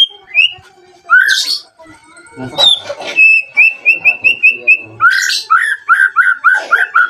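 White-rumped shama singing: whistled notes mixed with harsh, scratchy notes, then a fast run of short repeated notes a little after three seconds in, and a run of lower repeated notes from about five seconds in.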